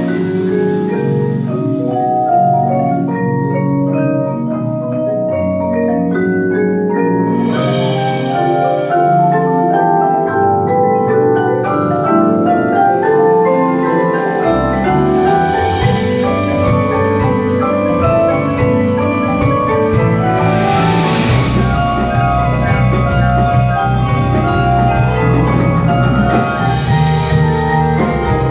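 Percussion ensemble of marimbas and other mallet keyboards playing busy interlocking patterns. A cymbal swell rises about eight seconds in. From about twelve seconds a steady high ticking rhythm joins, low bass notes come in soon after, and more cymbal swells follow.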